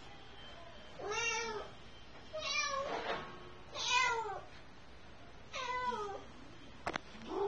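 Domestic cat meowing four times, each call rising and then falling in pitch, followed by a couple of sharp clicks near the end.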